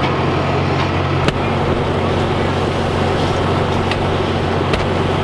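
An engine running steadily at idle, with a sharp knock about a second in and another near the end.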